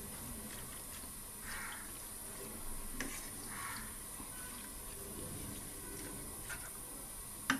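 Silicone spatula stirring raw duck pieces and chopped onion in a non-stick pan: soft scraping and rustling strokes, with sharp clicks of the spatula against the pan about three seconds in and, loudest, near the end.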